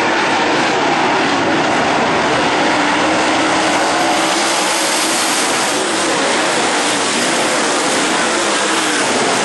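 A field of dirt late model race cars running their V8 engines hard around a dirt oval, a loud, steady din of several engines at once.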